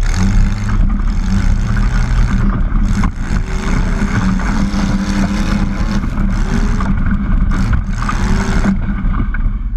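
Modified garden tractor pulling engine running at full throttle under load as it drags the weight sled. The engine backs off near the end.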